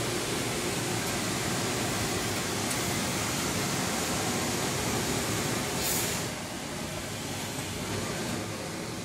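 Steady rushing machine noise of a garment pressing room, with its steam irons and ironing-table equipment running. A short, sharp hiss of steam comes about six seconds in.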